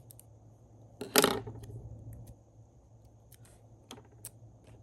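A short, sharp clatter about a second in from planner supplies being handled on a desk, followed by a few faint light taps.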